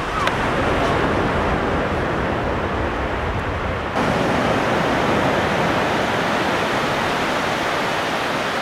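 Steady rushing noise of surf breaking on a sandy beach, mixed with wind on the microphone. The sound shifts abruptly about four seconds in, with less low rumble and more hiss afterwards.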